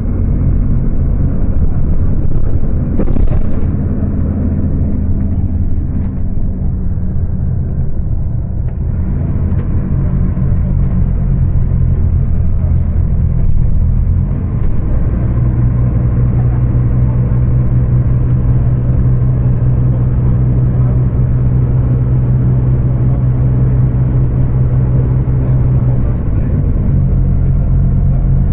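Scania K250UB city bus's rear-mounted diesel engine pulling at high revs, with a steady drone, heard through a phone microphone. The note changes about eight seconds in, settles into a strong drone about fifteen seconds in, and dips briefly near the end.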